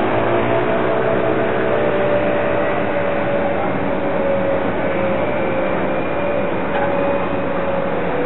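Road traffic: a steady noise of vehicle engines and tyres, with an engine hum that slowly sinks in pitch throughout.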